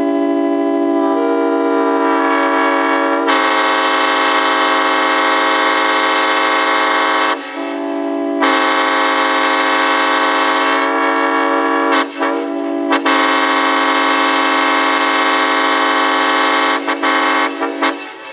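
Multi-chime air horn blown on compressed air, several notes sounding together as one loud chord. The notes come in one after another over the first few seconds. The blast breaks off briefly a few times, then ends in a few short stuttering toots before cutting off.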